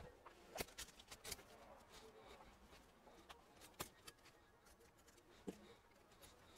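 Near silence: quiet room tone with a handful of faint, sharp clicks and taps.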